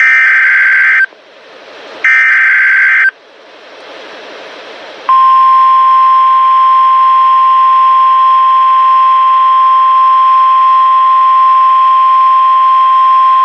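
NOAA Weather Radio alert signalling: two one-second bursts of EAS/SAME digital header data, a second apart, with radio hiss between them. About five seconds in, the steady 1050 Hz warning alarm tone starts and holds. Together they mark the start of a new warning broadcast, here a tornado warning.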